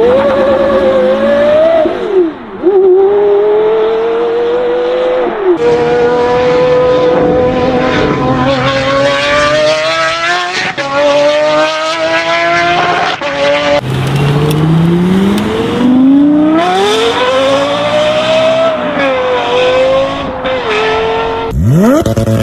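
High-revving car engines accelerating hard, each climbing in pitch and then dropping back as it shifts gear, over and over. The sound cuts from one car to another about a third of the way in, again about two-thirds in, and once more near the end.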